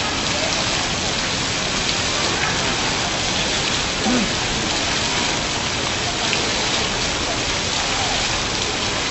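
Graphic waterfall (digital water curtain) dropping sheets of water that patter down in a steady, rain-like hiss.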